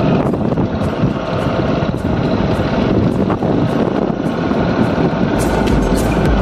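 Motorbike on the move: engine running under heavy wind noise on the microphone. Music with a beat comes in about five seconds in.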